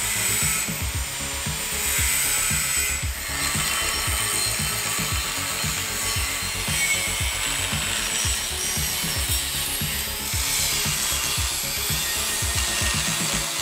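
Angle grinder cutting into a steel axle tube, with a steady abrasive hiss of the wheel biting the metal that eases briefly a couple of times. Background music with a beat runs underneath.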